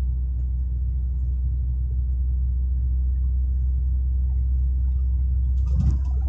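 Steady low rumble of a car's engine and tyres heard inside the cabin while cruising on a highway, with a short louder noise near the end.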